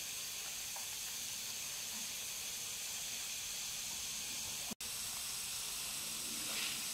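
Potato strips deep-frying in a pan of hot oil: a steady sizzle and hiss, with a momentary break about five seconds in. The fries are nearly cooked.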